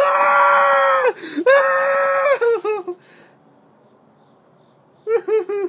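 A person's voice giving two long, loud, strained yells at a steady pitch, each about a second long, trailing off into a few short falling cries. After a pause of about two seconds, a quick run of short broken vocal sounds starts near the end.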